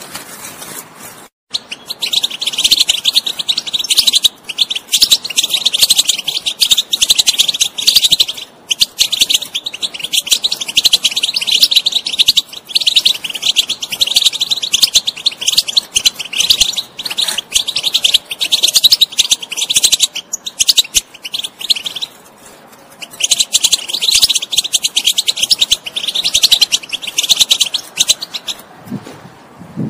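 European goldfinch singing a fast, continuous twittering chatter of rapid trills, the excited 'batbata' style of song. It starts after a moment, breaks off briefly about three-quarters of the way through, then resumes and stops just before the end.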